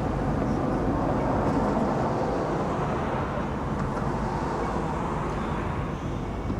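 Steady vehicle rumble with no distinct events, swelling a little a second or two in and easing toward the end.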